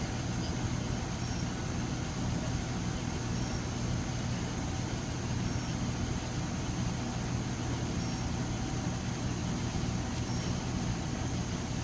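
Steady low hum of outdoor background noise, with a faint high steady tone and a short high chirp about every two seconds.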